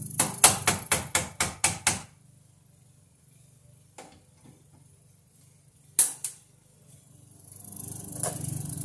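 A quick run of about eight sharp metallic taps, roughly four a second, from a hand tool striking the steel breaker panel, then a faint tap and a single loud knock a few seconds later. Background music fades out under the taps and comes back near the end.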